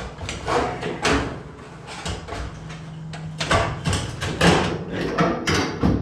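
Sheet-metal heating element housing of a dryer scraping, rattling and knocking as it is worked loose and slid out of the cabinet, in a run of irregular clanks and scrapes.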